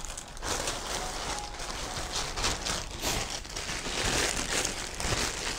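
Clear plastic bag crinkling and rustling irregularly as it is handled and soft clothing is pushed into it.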